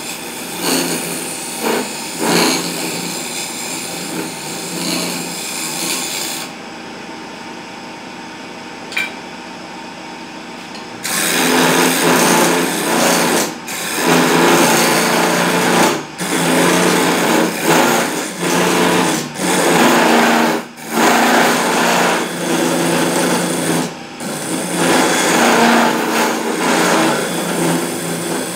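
Electric wood lathe running while a hand-held turning tool cuts a spinning wooden spindle: a steady motor hum under a rough scraping of tool on wood. The cutting comes and goes as the tool is lifted and set back, with a few seconds of quieter running about a quarter of the way in.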